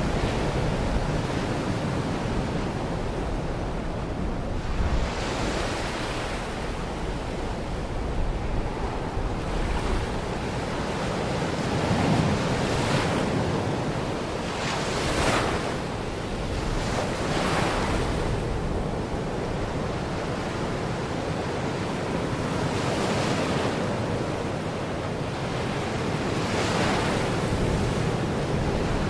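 Baltic Sea waves washing onto a beach: a steady surf rush with a swelling hiss as a wave breaks every few seconds, and wind buffeting the microphone.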